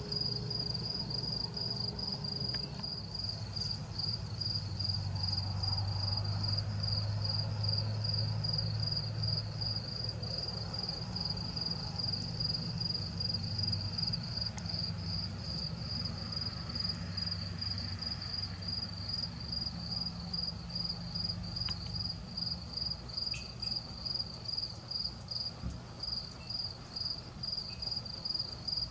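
A cricket chirping steadily in an even, high-pitched run of chirps, a few a second, over a low rumble.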